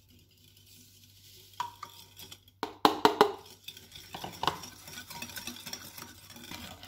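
Metal wire whisk beating eggs and sugar in a ceramic bowl: a few sharp knocks about three seconds in, then rapid clattering of the wires against the bowl.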